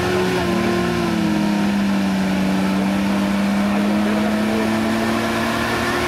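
Unimog 404's petrol straight-six engine held at steady high revs under load as the truck works through deep mud.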